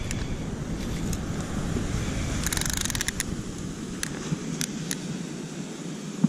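Steady low rumble of wind and surf on the microphone, thinning a little after about five seconds. About two and a half seconds in comes a quick run of small rattling clicks, then a few single clicks, as a tape measure is pulled out and handled.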